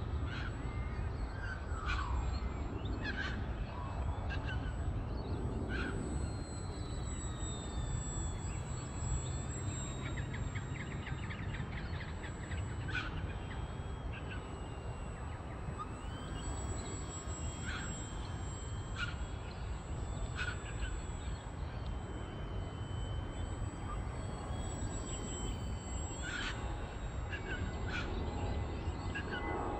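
Wild birds calling in short chirps and trills every few seconds, over the faint whine of a small electric RC airplane's motor high overhead, drifting slowly up and down in pitch, and a low background rumble.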